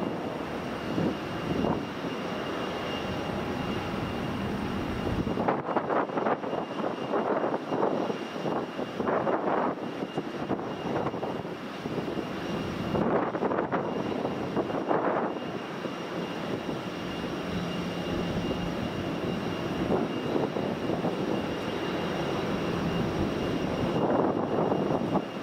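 A Boeing 777 airliner's twin jet engines running on final approach and through touchdown, heard as a continuous jet rumble that is uneven in level.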